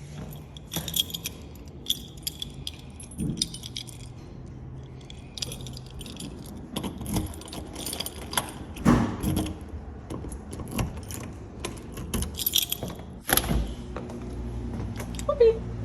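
Keys jangling in repeated bursts, with handling knocks and thumps in between.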